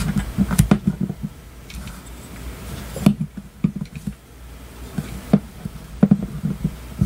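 Irregular clicks and taps of a screwdriver and fingers working a small diecast metal truck cab, prying at the plastic pins that hold its windshield.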